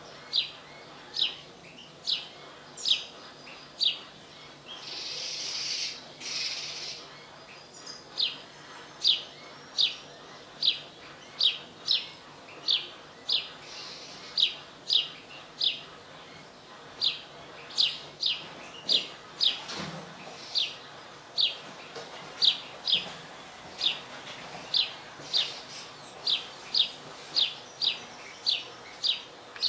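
Caged European goldfinch giving a steady series of short, sharp, downward chirps, about one or two a second. A brief hiss breaks in about five seconds in.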